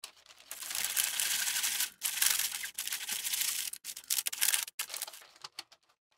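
Wooden craft stick scraping wet epoxy across a flat sheet: two long spreading strokes, then several shorter, quicker strokes that die away near the end.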